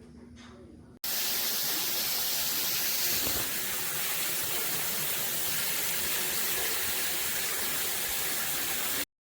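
Water spraying hard from a high-pressure shower head, a steady loud hiss that cuts in suddenly about a second in and stops abruptly just before the end.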